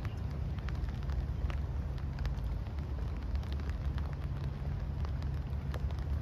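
Outdoor background noise: a steady low rumble with many faint, irregularly scattered ticks over it.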